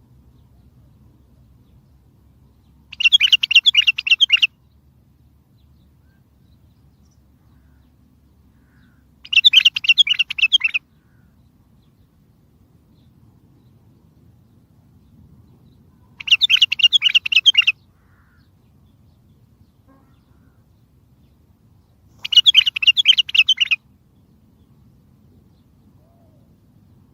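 A bulbul singing in four short bursts of rapid, chattering notes, each about a second and a half long and spaced six to seven seconds apart, over a faint low hum.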